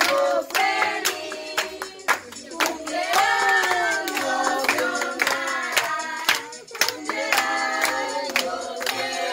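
A group of people singing a birthday song together, with hands clapping along.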